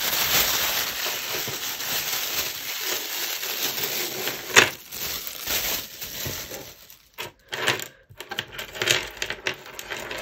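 A plastic bag rustling as a heap of metal costume jewellery is shaken out of it onto a table, the pieces rattling and clinking, with one sharp clink about four and a half seconds in. After that, separate light clinks of metal pieces being picked through by hand.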